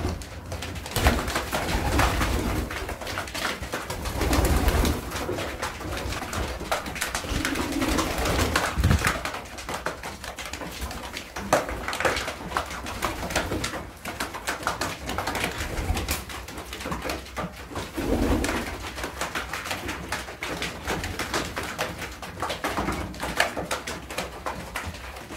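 Racing pigeons cooing, low repeated coos every few seconds, over many small sharp taps and clicks from birds pecking seed at a wooden feeder and shuffling about.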